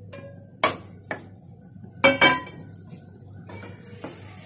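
Frying pan clanking against the rim of an aluminium cooking pot as fried bitter gourd is tipped and knocked out of it: four sharp knocks, two of them close together about two seconds in. Near the end a wooden spoon starts stirring in the pot.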